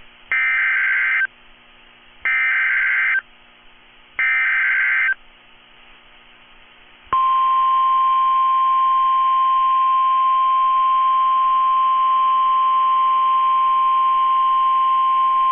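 Emergency Alert System tornado-warning activation as aired on NOAA Weather Radio. It opens with three one-second bursts of SAME digital header data, about two seconds apart. About seven seconds in, the steady 1050 Hz weather radio warning tone begins and holds.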